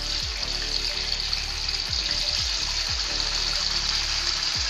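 Raw chicken pieces sizzling in ghee in a karahi as they are laid in, a steady hiss; the ghee is not yet very hot.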